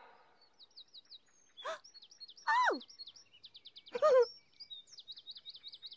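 Small birds chirping in quick repeated series, with three brief voice-like calls cutting in about one and a half, two and a half and four seconds in, the middle one sliding down in pitch.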